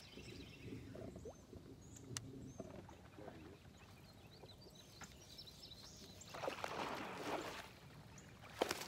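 Quiet fishing sounds from a bass boat's deck: a cast and reel noise about two-thirds of the way in, then a lure splashing into the water near the end. Small bird chirps are heard faintly through the first half.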